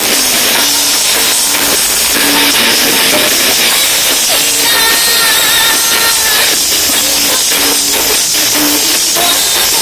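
Female singer with a live band performing a pop song, recorded from the crowd and heavily distorted, with a strong hiss over the music. A long held note comes about halfway through.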